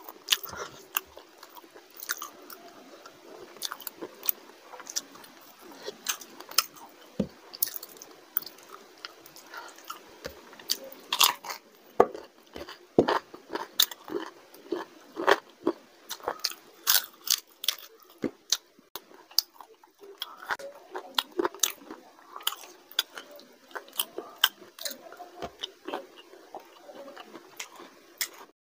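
Close-miked eating: a man chewing and biting on curry, rice and a chicken leg, with many sharp wet mouth clicks and occasional crunches.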